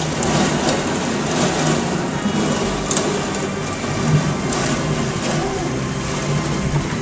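Torrential rain and wind of a thunderstorm downburst, a dense steady pouring with a few sharp knocks about three and four seconds in.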